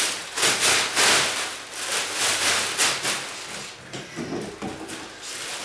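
Bags rustling and crinkling as they are handled, in a run of rustles over the first three seconds, then quieter.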